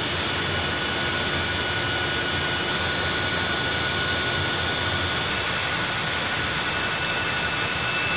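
Printing and coating plant machinery running: a steady mechanical rushing noise with several steady high-pitched whines over it.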